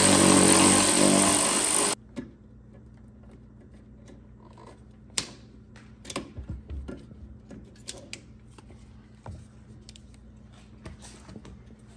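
Cordless electric ratchet running, spinning a bolt out, then cutting off abruptly about two seconds in. After it, quiet scattered clicks and knocks of hand tools working around plastic clips.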